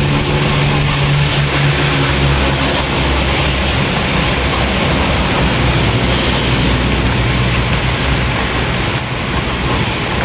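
Steady heavy rain, with the low engine hum of a motor vehicle running beneath it.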